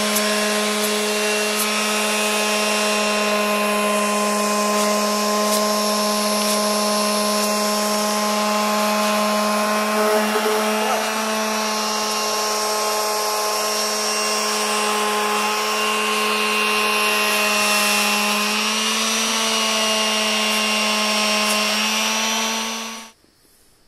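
Electric detail sander running on a wooden tabletop: a steady, even buzzing hum with the pad rubbing over the wood. It cuts off abruptly near the end.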